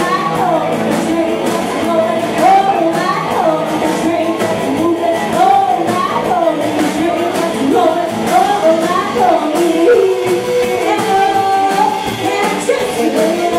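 Live rockabilly band: a woman singing over upright bass, drums and a hollow-body electric guitar, with a steady driving beat.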